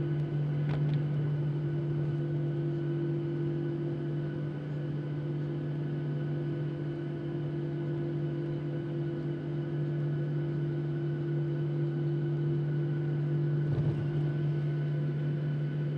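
Steady drone inside the cabin of a Boeing 737-700 taxiing after landing, with its CFM56 jet engines at idle. It is a steady low hum with a second tone above it, unchanging throughout.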